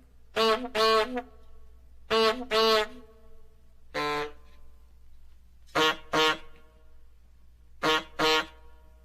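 A horn honking in short bursts, mostly in quick pairs: four double honks and one single one. Each honk holds a steady pitch.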